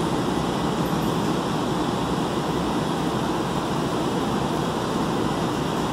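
Steady low rushing hum inside a stationary JFK AirTrain car standing at the platform with its doors open.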